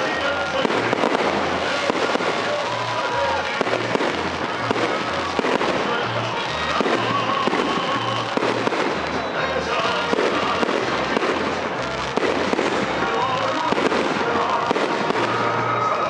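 Aerial fireworks bursting overhead, a dense, unbroken crackling and popping from crackle-star shells.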